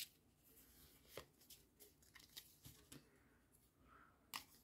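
Faint, scattered snaps and riffles of a small deck of oracle cards being shuffled by hand, with one sharper snap near the end as a card is drawn.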